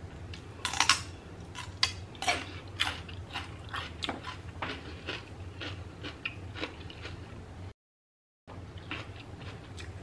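Crisp crunching of raw celery being chewed, a rapid run of loud snaps that gradually grows softer. The sound cuts out completely for under a second about three-quarters of the way through.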